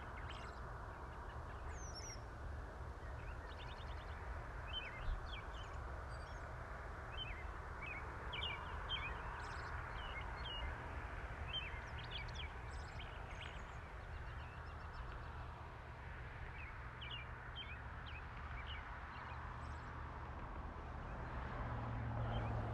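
Birds chirping and calling in short, scattered notes over a steady low hum and outdoor noise; the hum grows a little louder near the end.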